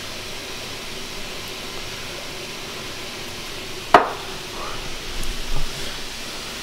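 Chicken tenders sizzling in a frying pan, a steady hiss, with one sharp click about four seconds in.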